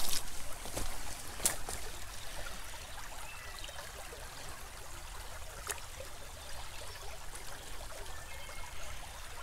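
Shallow woodland creek trickling over gravel riffles, a steady light rush of water, with a few sharp clicks.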